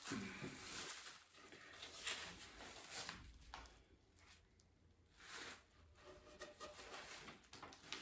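Near silence with a few faint rustles and light knocks, as of furniture parts and packaging being handled.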